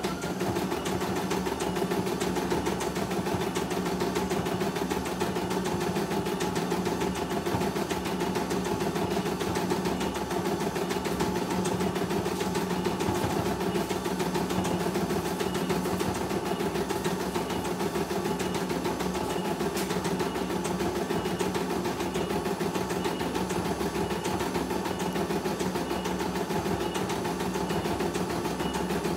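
CNY E900 computerized embroidery machine stitching a design: the needle runs at a rapid, steady rate over the hum of its motor, keeping an even level throughout.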